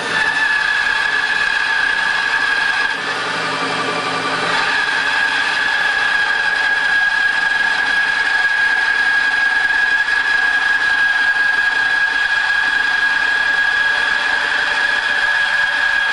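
Band saw running steadily with a constant high-pitched whine while cutting arched lumber, the sound easing briefly about three seconds in.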